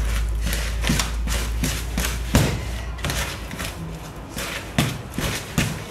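A spoon beating thick cake batter in a plastic mixing bowl: irregular dull knocks and scrapes against the bowl, about two or three a second, with a low rumble under the first two seconds.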